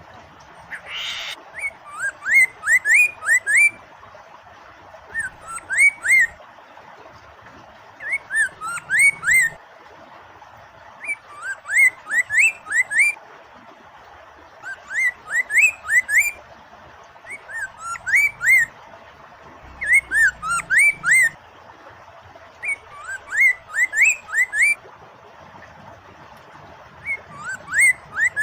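Poksay mandarin (Chinese hwamei) singing in short phrases of quick, rising whistled notes, one phrase about every two seconds, over a steady hiss of running water.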